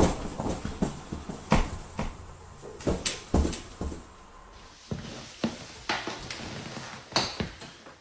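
About a dozen irregular knocks and clatters, like household objects being handled, growing fainter toward the end.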